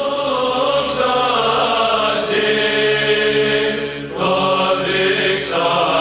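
Background music: slow Orthodox church chant of long held voices over a steady low drone, the melody moving to new notes a few times.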